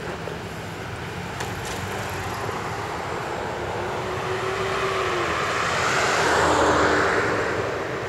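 A vehicle passing by: its noise swells for several seconds to a peak near the end and then fades, and its hum drops in pitch as it goes past.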